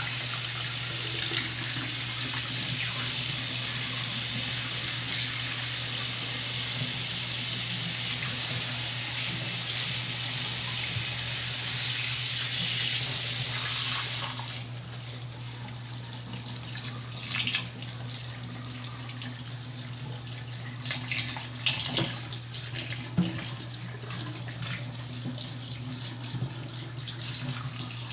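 Tap water running into a stainless steel kitchen sink while hands rinse something under the stream. The steady rush drops to a softer flow about halfway through, with a few splashes after that.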